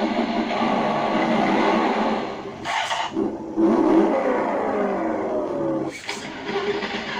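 Simulated car engine sound from an RC car sound module, revving up and down in pitch, with two short breaks about three and six seconds in.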